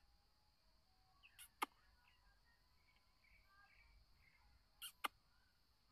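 Black francolin giving two short, harsh double notes about three and a half seconds apart, with faint chirps of other birds in between.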